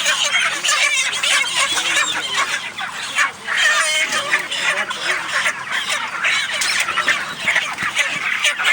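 A large flock of broiler chickens, about five weeks old, cheeping and clucking all at once in a steady, dense chatter.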